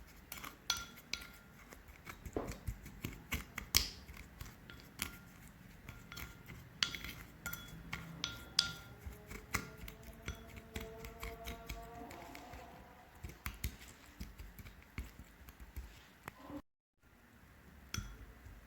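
Grated turnip and sugar being mixed in a bowl: irregular light clicks and scraping.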